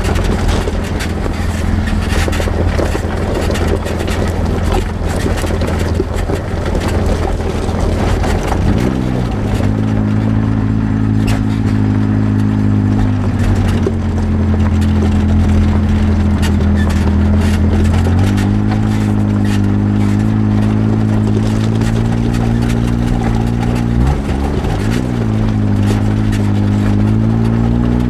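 Polaris RZR side-by-side UTV engine running under way, its note rising and falling with the throttle several times: it climbs about nine seconds in, drops back, and rises again past the halfway point and near the end. Scattered knocks and rattles from the rough ground run under it.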